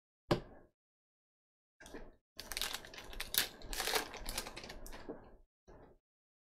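Foil baseball card pack wrapper being torn open and crinkled by hand, a few seconds of crackling about halfway through, after a short tap near the start.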